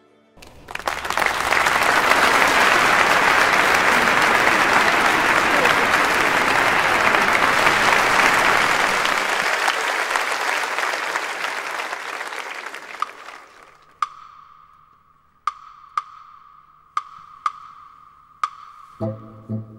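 Concert audience applauding, which swells quickly, holds, and fades out about thirteen seconds in. Then come about seven sharp percussion strikes, spaced unevenly, over a faint held high note. A low brass rhythm begins just before the end.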